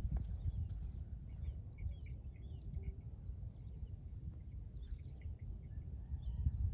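Outdoor ambience: a low, uneven rumble with faint bird chirps scattered through it and a thin, steady high-pitched tone.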